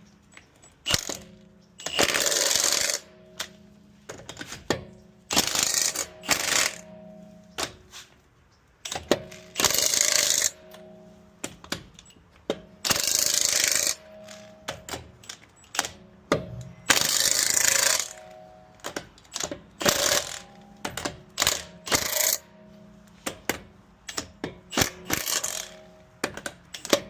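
Ratchet wrench being worked in short runs of rapid clicking, about a second at a time, with clinks of metal tools and parts between them, as the brake caliper bolts are run down and tightened.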